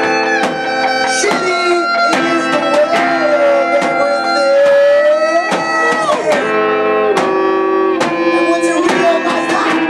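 A live rock band playing loud: electric guitar and drum kit, with long held lead notes that bend in pitch from the front man at the microphone.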